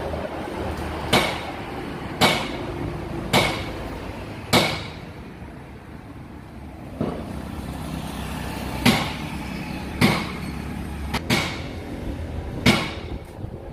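Hammer striking metal in repeated single blows, about nine of them at roughly one a second with a pause near the middle, each with a short ring. A low steady hum runs underneath for the first half.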